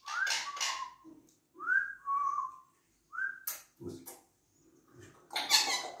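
Pet parrot whistling: several short whistles that swoop upward and settle on a steady note, between harsher scratchy calls, with a couple of sharp clicks in the middle and the loudest harsh call near the end.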